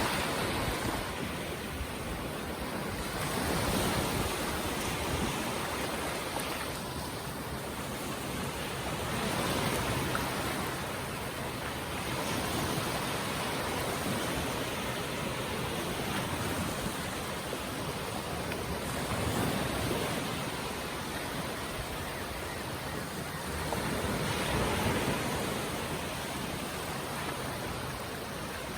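Ocean surf breaking and washing up a beach: a steady rush that swells and eases every few seconds as each wave comes in.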